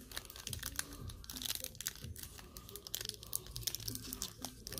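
Clear plastic wrapper of a baseball card pack crinkling and tearing as it is worked open by hand, in a quick run of small crackles.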